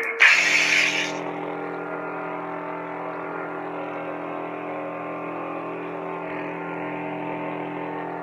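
Lightsaber sound board playing through the hilt's speaker: a brief loud hissing burst in the first second, then the blade's steady electric hum, several low tones held at an even level.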